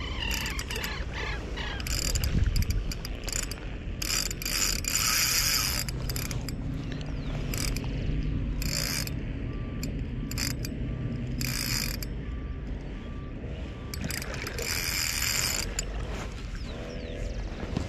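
Spinning reel working a hooked fish, likely a Chinook salmon: the reel runs as the handle is cranked, and its drag ratchets out line in short spells several times.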